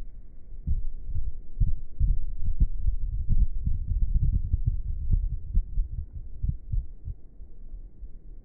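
Low, irregular rumbling and buffeting on the microphone, several uneven thumps a second, like wind hitting the mic while riding.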